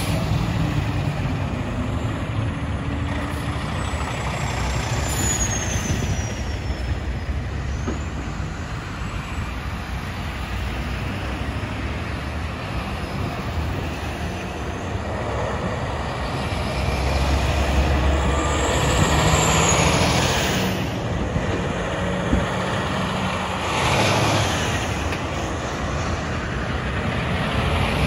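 A line of tow trucks, flatbeds and a heavy wrecker, drives past one after another, their engines and tyres rumbling steadily. The sound swells as each truck draws close, loudest about two-thirds of the way through and again at the very end.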